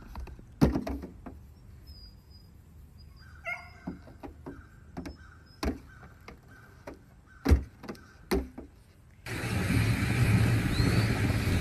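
Goat's hooves knocking on a car's metal hood and roof: several sharp knocks a second or two apart. About nine seconds in, it gives way to a loud, steady rushing noise.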